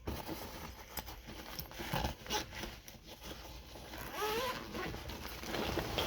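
Zipper of a tool kit bag being pulled open in a series of rasping strokes, with the rustle and scrape of handling the bag.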